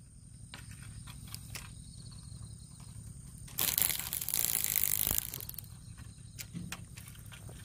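Handling noise from a long surf-casting fishing rod moved close by: a loud burst of rustling and scraping lasting about a second and a half in the middle. Under it runs a steady low hum with a few faint ticks.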